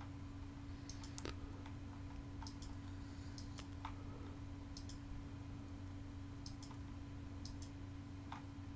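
Computer mouse clicking now and then, about a dozen short separate clicks, some in quick pairs, over a faint steady low hum.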